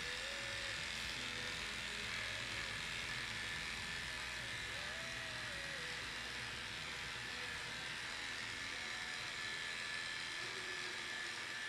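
Cordless electric dog grooming clippers running steadily as they shave a dog's matted coat, a constant buzz with a thin high whine.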